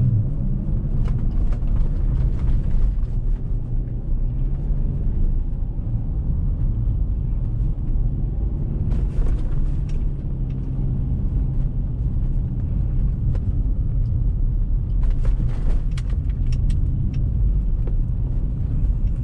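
Car driving on snow-covered roads, a steady low rumble of engine and tyres with scattered sharp clicks and crackles, bunched about nine seconds in and again about fifteen to seventeen seconds in.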